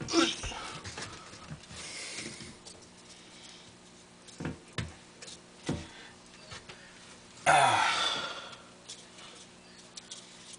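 Wordless breathy vocal sounds from a person: a short falling sigh at the start and a louder, longer falling sigh or groan about three quarters of the way through, with a few soft knocks in between.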